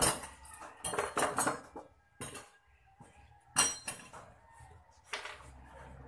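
Short metal cylinders cut from cans knocking and clinking against each other as they are picked up and stacked, in a series of sharp clanks with a bright metallic ring.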